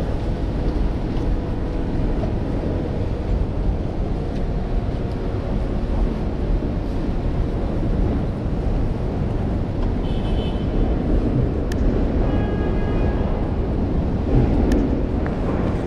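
Rainy city street ambience: a steady wash of passing traffic on wet roads, with a low rumble of wind on the microphone. A few faint, brief high tones come through around the middle.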